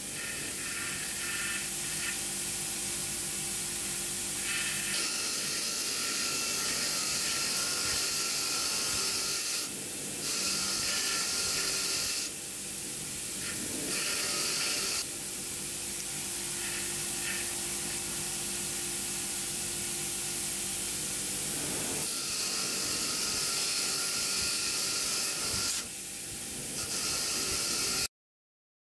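Bench grinder running with a steady motor hum while small metal cabinet hardware, a round plate and screws, is held against its spinning wire wheel to clean it, giving a hissing scrub that changes every few seconds. The sound cuts off suddenly near the end.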